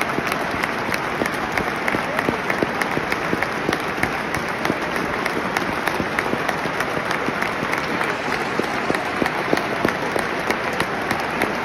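Large football stadium crowd applauding: a steady mass of many overlapping hand claps.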